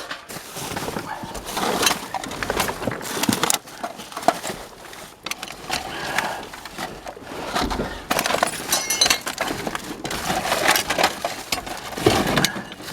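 Junk being rummaged through and shifted in a dumpster: continual clattering, knocking and clinking of scrap metal, wire and debris, with a brief metallic ring about two thirds of the way in.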